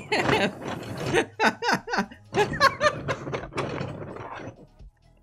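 Two men laughing in repeated short bursts, dying away near the end.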